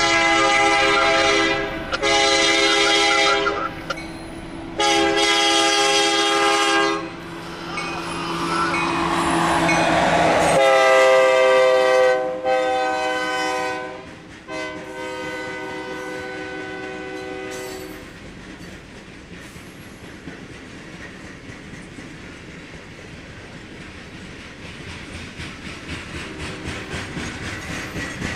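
Union Pacific diesel locomotive's air horn sounding several long blasts, dropping in pitch about ten seconds in as the locomotive passes close by, over the rush of its engine. The horn stops a few seconds later, leaving the steady rumble of a train of dump cars rolling by, with wheels clicking over rail joints near the end.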